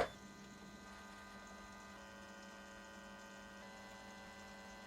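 A sharp click right at the start, then a faint, steady electrical hum made of several held tones.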